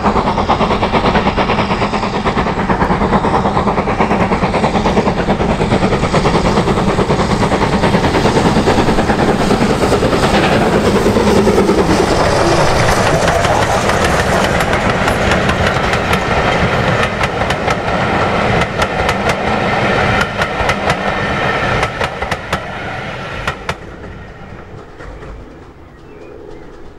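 Steam locomotive passing at speed with a train of coaches: dense exhaust beats and running noise at first, then the coaches' wheels clicking rhythmically over the rail joints as they go by. The sound falls away about three-quarters of the way through as the train recedes.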